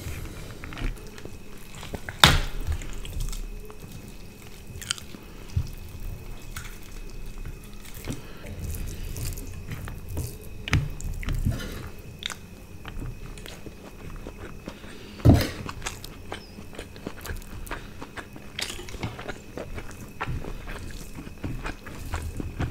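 Close-miked eating with the hands: fingers squishing rice and curry on plates, tearing roast chicken, and chewing, in a run of small clicks and crackles. Two louder sharp knocks stand out, about 2 seconds and 15 seconds in.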